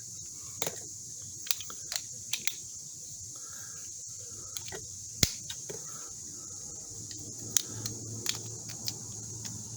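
Irregular sharp clicks and snaps of an old, stiff Leatherman-style multi-tool's blades and tools being worked open and shut, about a dozen in all, the sharpest about five seconds in. The pivots are still stiff and the tools tend to move together.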